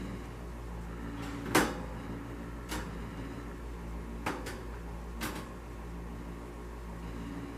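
Several light knocks and clinks of metal as a rag wipes the stainless-steel interior and wire racks of a cook-and-hold oven, the loudest about a second and a half in.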